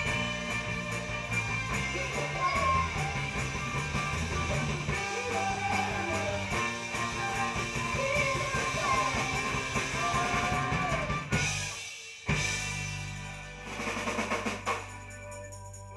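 Live rock band in a small rehearsal room: electric guitar, bass and drum kit playing under a sliding lead melody. About 11 seconds in the band hits a sharp stop, then comes back with a held final chord under a drum roll and cymbals, closing on one last loud hit: the ending of the song.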